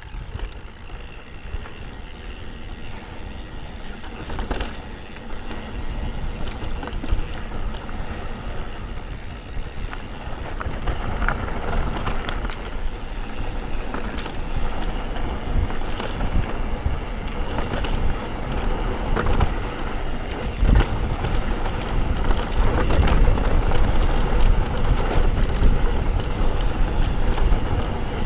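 Santa Cruz Hightower mountain bike riding downhill over rough trail: tyre rumble and wind rush with frequent rattling knocks from the bike, growing louder as speed builds.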